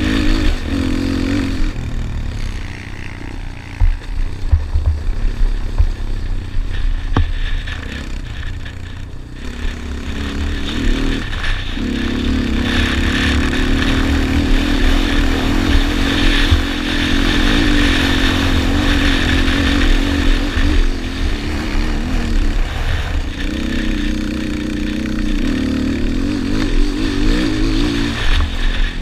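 Yamaha Raptor 250 quad's single-cylinder four-stroke engine racing on a dirt motocross track, heard from the rider's helmet. Throttle is worked on and off through the first stretch, with a few sharp knocks as the quad crosses rough ground. Then it pulls at high revs for about ten seconds, eases off briefly and pulls hard again.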